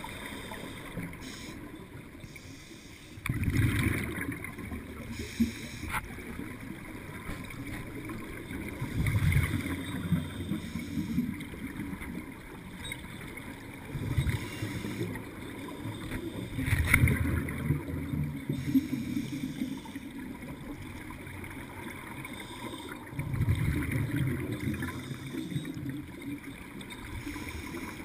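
Scuba divers breathing from open-circuit regulators, heard underwater: about five low bubbling swells of exhaled air a few seconds apart over a steady low background.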